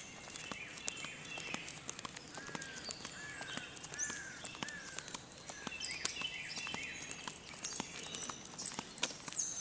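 Wild birds singing: several short arching notes repeated in the middle, among higher chirps, over a steady ticking of footsteps on pavement.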